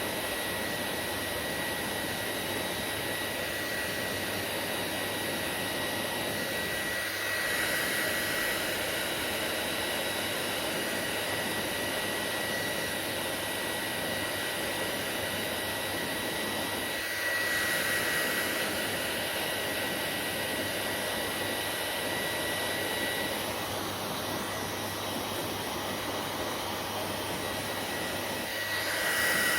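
Hair dryer running steadily: a rushing blow of air with a thin, high motor whine. The blowing swells a little a couple of times and again near the end.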